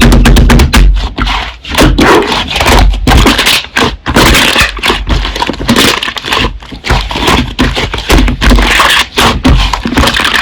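Slime being squeezed and worked by hand, with a dense, continuous run of crackling pops and clicks.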